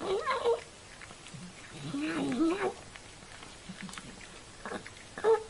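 Cat meowing: a short meow at the start, a longer wavering meow about two seconds in, and a brief meow near the end.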